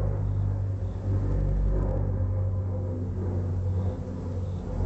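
Helicopter nearby: a steady low rotor rumble.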